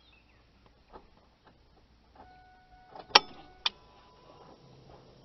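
Electromagnetic A/C compressor clutch on a 2000 Ford F-350 Super Duty snapping in against its pulley: one sharp metallic click about three seconds in, then a softer second click half a second later. The plate now pulls in on its own with the ignition on, because removing a shim washer closed the air gap to about 12 thousandths.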